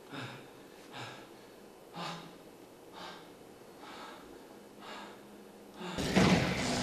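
A man breathing hard in short gasps, about one a second. Near the end a loud rushing swell rises over them.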